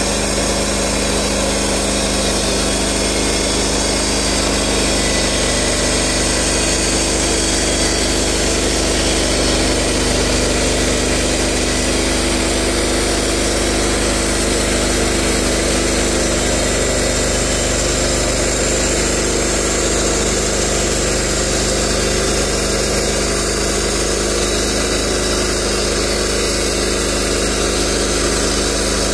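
Portable circular sawmill running steadily at speed, its engine-driven blade cutting along the length of a tulip poplar log.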